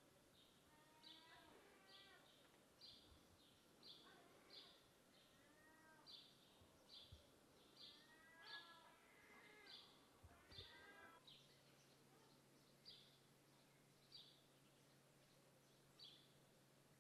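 Faint outdoor ambience: a bird chirping over and over in short high notes, with fainter lower calls in the background. A faint low hum comes in about two-thirds of the way through.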